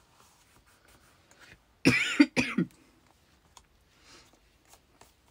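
A person coughs twice in quick succession about two seconds in, amid faint rustling of paper as hands press a card topper flat.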